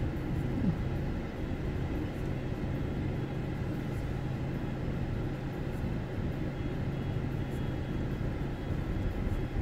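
Car cabin sound as the car rolls slowly: a steady low hum of the engine and road noise, with no sharp events.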